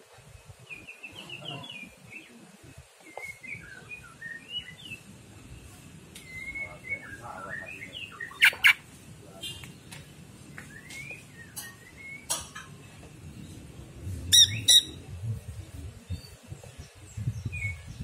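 Green leafbird (cucak ijo) singing: a run of varied short whistled and warbled phrases, broken by a few sharp, loud notes about halfway through and again two seconds later.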